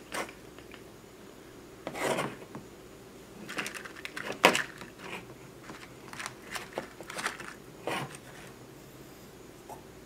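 Rummaging through small parts for heat shrink tubing: irregular clicks, light clatter and short rustling scrapes, with one sharp knock about halfway through.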